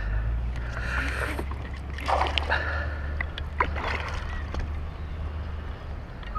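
Baitcasting reel being cranked while fighting a hooked bass, over a steady low wind rumble, with a few short rushing bursts about one, two and four seconds in.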